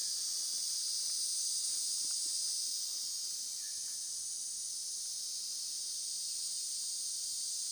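Steady, high-pitched chorus of forest insects, running without a break.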